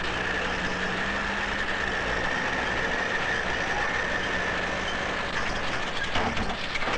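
Heavy truck engine running steadily, with a steady high whine over a low rumble. Several sharp metallic knocks come near the end.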